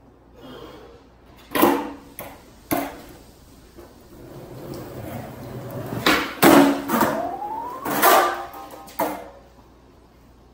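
Skateboard on a bare concrete floor: the wheels roll with a growing rumble, then the board's tail pops and the deck slaps down in sharp clacks on a backside 180 attempt, with a few more board knocks after it.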